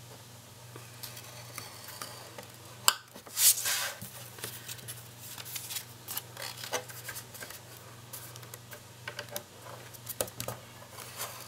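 Stylus scraping through cardstock along a groove of a plastic scoring board, with the paper slid and tapped into place between strokes; a sharp click about three seconds in, then a half-second scrape, and small scattered ticks. A steady low hum runs underneath.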